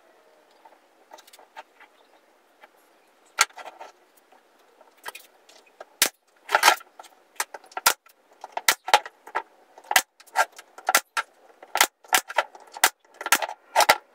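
Irregular sharp clicks and clacks of small hard objects being handled, sparse at first and coming thick and fast from about six seconds in.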